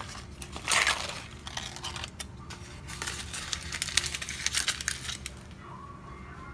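Aluminum foil crinkling and crackling as a hand pulls it open, a dense run of sharp crackles starting about a second in and dying down after about five seconds.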